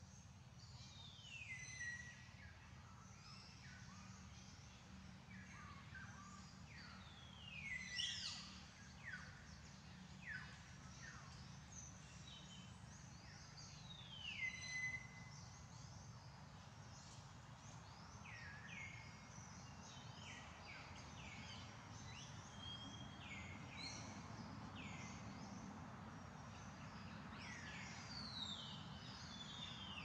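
Faint forest ambience with birds calling: short, high chirps that sweep downward and end on a brief held note, repeated many times and overlapping, over a faint steady low hum.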